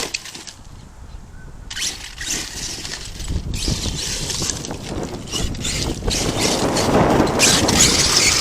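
Arrma Kraton 8S RC truck running on loose dirt: a hiss of tyres and gravel with scattered knocks, growing louder about seven seconds in.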